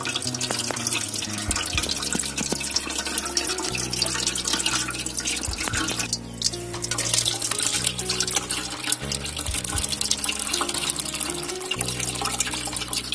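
Watermelon juice streaming and splashing through a steel colander into a metal pot as mashed pulp is squeezed by hand, over background music with steady low notes.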